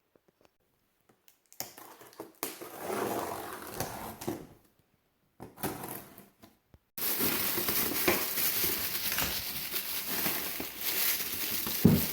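Packaging of a mini-split unit being opened and handled: cardboard and plastic wrapping rustling and crinkling in bursts, becoming a dense continuous crinkling about seven seconds in.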